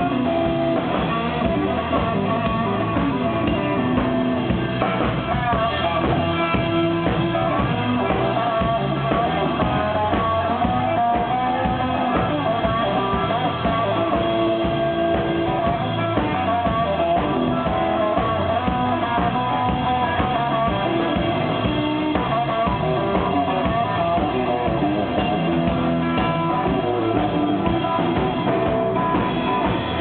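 Live band playing rock music, led by a hollow-body electric guitar over a drum kit.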